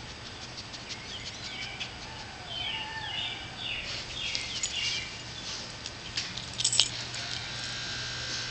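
Dog rolling and squirming on its back in grass, with rustling and a short cluster of sharp clicks about two-thirds of the way in. A bird chirps a quick series of short falling notes around the middle.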